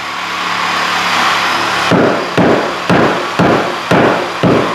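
Hammer blows on a wooden subfloor, evenly spaced at about two a second, beginning about two seconds in.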